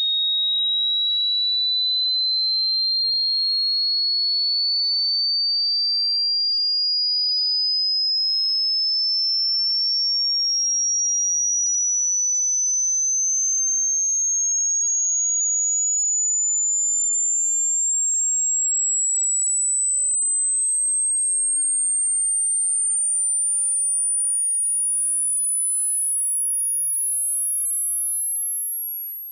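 A single pure sine tone climbing steadily in small, even steps from a high whistle to a very high, thin one. It is a hearing-test frequency sweep, used to find the highest pitch the ear can still detect.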